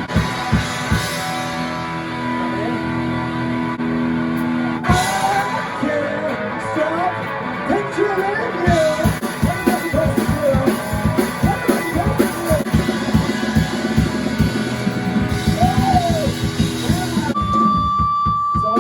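Rock music with guitar, drums and singing: held guitar chords at first, then drums and a sung melody come in about five seconds in. The music changes abruptly near the end.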